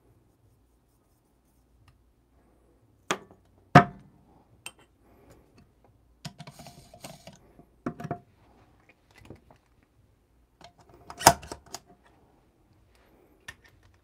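Espresso puck preparation: the clinks and clunks of a portafilter, dosing funnel and tamper being handled on a wooden tamping station. A handful of sharp knocks, the loudest about four and eleven seconds in, with brief scraping about six seconds in.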